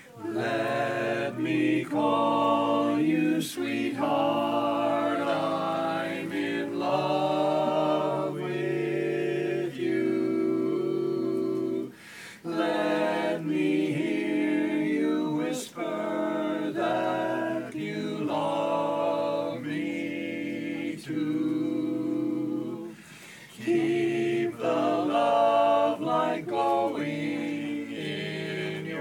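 Barbershop quartet singing a cappella in close four-part harmony, with brief pauses between phrases about twelve and twenty-three seconds in.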